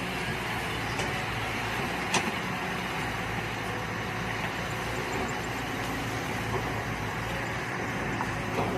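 Mini excavator engine running steadily, with a sharp metallic knock about two seconds in and a couple of fainter ones.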